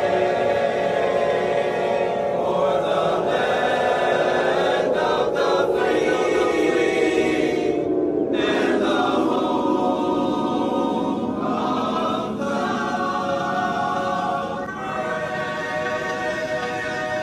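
Choral music: a choir singing held chords, with a slow downward slide in pitch from about three seconds in to about ten seconds in.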